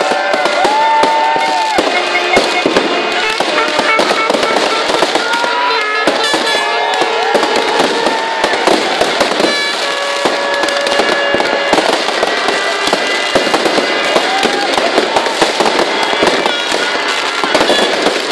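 Dense fireworks crackling and banging without let-up, over many overlapping held tones that bend up and down, and voices.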